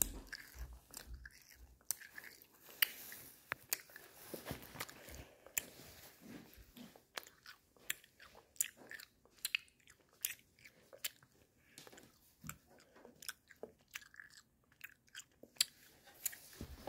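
Close-up chewing of a hard-coated chewing-gum pellet: irregular crunches and wet mouth clicks, with no steady rhythm.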